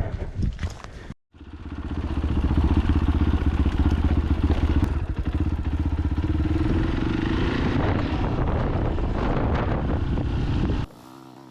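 Fantic Caballero 500's single-cylinder engine running steadily while the motorcycle is ridden. It fades in after a brief gap about a second in and cuts off abruptly near the end.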